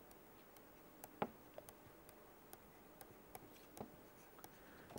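Faint, irregular clicks and taps of a pen stylus on a tablet PC screen while words are handwritten, the loudest about a second in.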